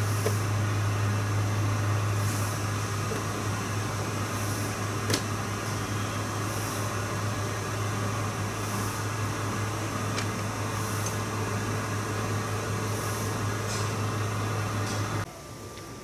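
A steady low hum over a background hiss, which cuts off abruptly shortly before the end, with a couple of faint clicks about five and ten seconds in.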